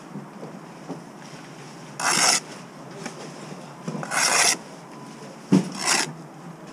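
Steel brick trowel scraping across mortar and brickwork in two strokes of about half a second each, then a sharp knock and a shorter scrape near the end.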